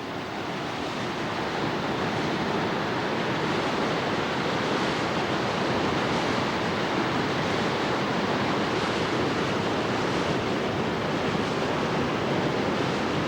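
Swollen, muddy floodwater of a river rushing past in a steady, unbroken wash.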